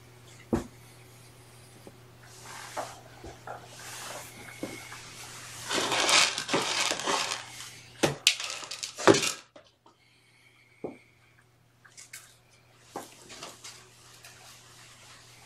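Household handling noise as a cat room is tidied: rustling of fabric cat beds and toys being moved, with scattered sharp knocks and clicks. The loudest stretch, a burst of rustling and knocks, comes about six to nine seconds in, over a steady low hum.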